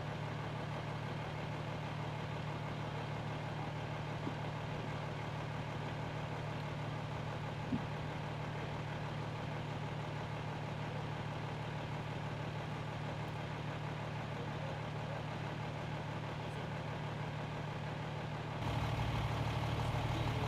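Fire engine idling: a steady low engine drone, with one short click about eight seconds in. It gets louder near the end.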